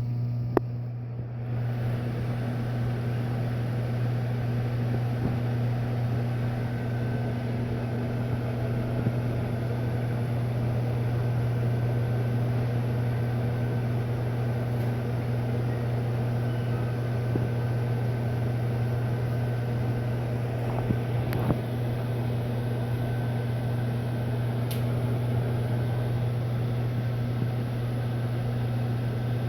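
Microwave oven running, a steady low hum with the fan's whir and a few faint clicks.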